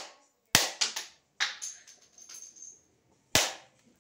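Sharp cracks and knocks from the plastic body of a small handheld vacuum cleaner as it is being broken apart: three separate hits, about half a second in, about a second and a half in, and near the end.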